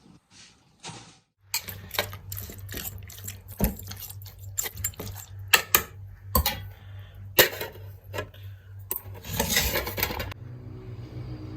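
Clicks and knocks of household items being handled, like dishes and utensils, over a steady low hum that starts about a second and a half in, with a short rushing noise near the end.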